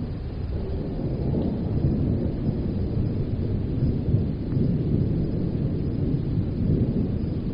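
Distant thunder, a long low rumble that builds after the first second and eases slightly near the end.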